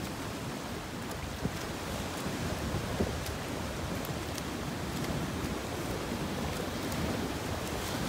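Steady wash of wind and sea water at an ocean rock pool, with small splashes from freestyle swimmers' strokes.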